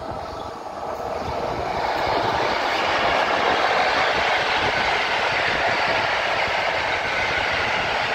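PKP Intercity EP07 electric locomotive and its passenger coaches passing close by at speed: a steady rush of wheels on rail that swells over the first couple of seconds and holds as the coaches go by.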